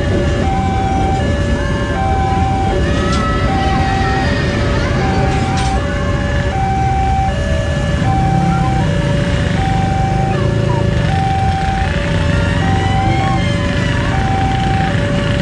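Railway level-crossing warning alarm sounding from the signal's loudspeaker: a high tone and a lower tone alternating over and over, one pair about every second and a half. Under it, motorcycle and car engines run as traffic crosses, growing fuller about halfway through.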